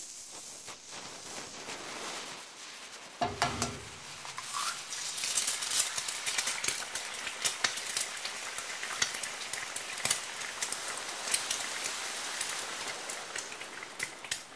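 Frying sizzle of an egg in a pan, a steady hiss full of crackling pops that grows louder about four seconds in, with a short thump a little before. The toy pan cannot sizzle, so this is a frying sound laid over the picture.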